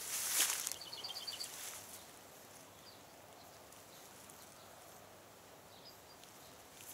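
A close burst of rustling for the first two seconds, with a short run of about seven quick high chirps about a second in. Then a quiet outdoor background with a few faint high calls.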